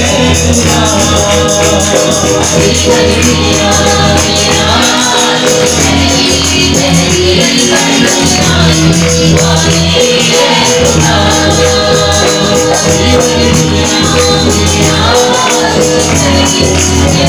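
Christian worship song: a man singing into a microphone over a Yamaha electronic keyboard accompaniment.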